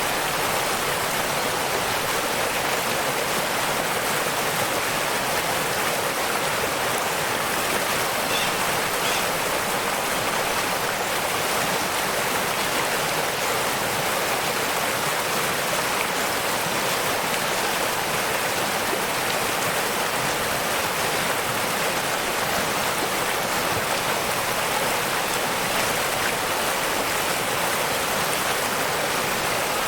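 Waterfall rushing: a steady, even hiss of falling water with little low rumble.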